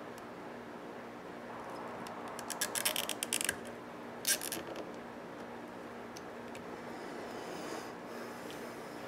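Small nylon cable tie being pulled tight through its head: a quick run of ratcheting clicks about two and a half seconds in, then a single sharp click about a second later, over a faint steady hum.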